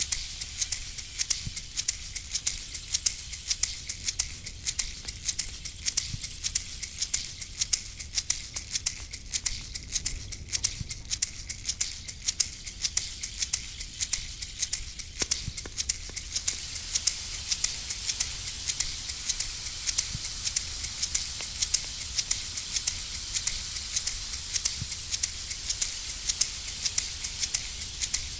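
Hand rattle shaken in a steady rapid rhythm, a dense stream of dry rattling clicks with accents a few times a second, over a faint low rumble.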